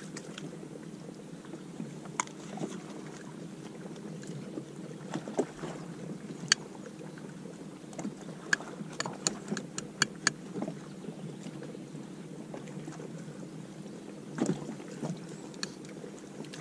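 On-the-water sound from a fishing kayak: a steady low rumble with scattered sharp clicks and taps, thickest between about eight and eleven seconds in.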